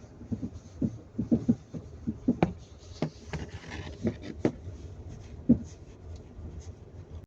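Lada Vesta NG front suspension knocking on the left side: a dozen or so irregular metallic knocks over a low rumble, one of the loudest about five and a half seconds in. A dealer traced the knock to the front anti-roll bar's worn rubber bushings.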